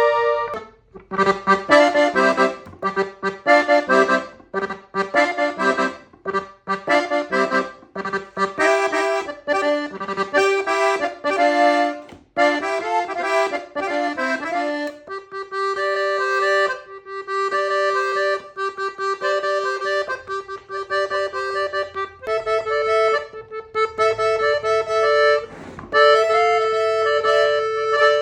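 A new Gabbanelli button accordion playing a norteño-style tune. The first half is quick runs of notes; from about halfway through it moves to a slower melody over long held notes.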